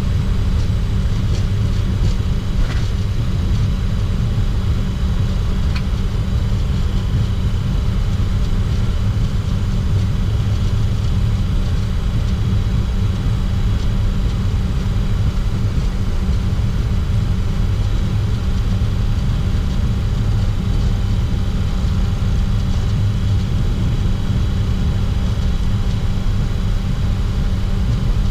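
Steady cockpit noise of a Bombardier Challenger 604 taxiing: its General Electric CF34 turbofan engines run at taxi power under a constant low rumble, with faint steady tones above it.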